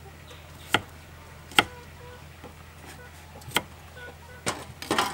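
Kitchen knife cutting shallots on a round wooden chopping block, the blade knocking sharply into the wood: four single chops, irregularly spaced about a second or two apart, then a quicker cluster of chops near the end.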